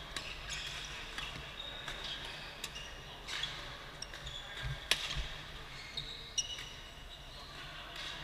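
Badminton rally: sharp racket strikes on the shuttlecock at irregular intervals, the loudest about five seconds in, with court shoes squeaking on the floor as players lunge and shuffle.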